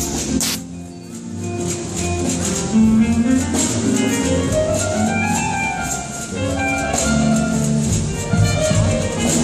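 Symphony orchestra playing live; the music thins out briefly just after the start, then swells back.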